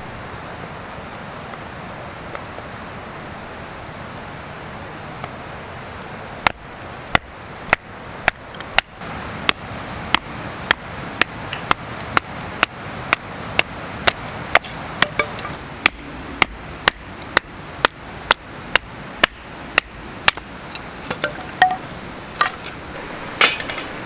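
Batoning: a wooden baton strikes the spine of a fixed-blade knife set into a stick of firewood, driving the blade down to split the wood. Sharp knocks about twice a second start about six seconds in, after a steady hiss, and turn lighter and irregular near the end.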